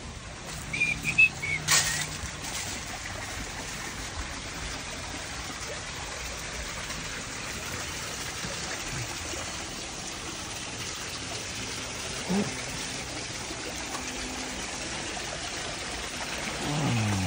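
Steady trickling and splashing of running water in a backyard koi pond. A few short high chirping whistles and a sharp click come about a second or two in.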